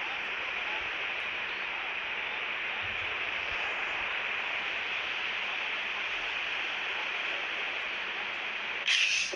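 A steady hiss, strongest in the upper-middle range, with a sudden louder burst of noise right at the end.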